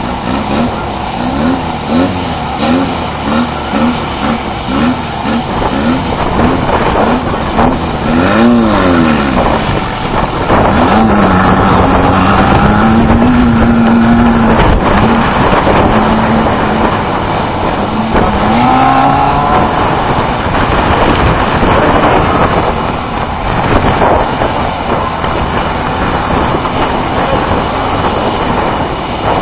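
Class 11 stock VW Beetle race car's air-cooled flat-four engine under hard throttle over rough dirt, with a constant noisy rattle underneath. The revs rise and fall quickly over and over for the first several seconds, then hold steady for about eight seconds before climbing again.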